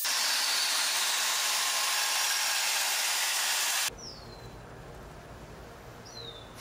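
Portable band saw cutting through brass stock, a loud steady hiss that cuts off abruptly about four seconds in. After that the sound is quieter, with a low hum and two short high chirps that fall in pitch.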